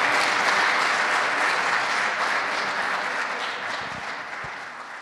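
Audience applause from a seated crowd, steady at first and then gradually fading away toward the end.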